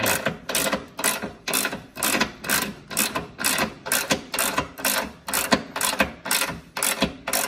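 Ratchet wrench clicking in a steady rhythm, about twice a second, as it is swung back and forth to tighten a steel towbar mounting bolt and pull the bracket into shape.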